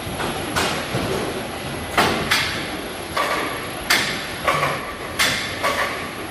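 Cardboard peach boxes knocking and clattering along a gravity roller conveyor: about eight sharp, irregular knocks over a steady background din.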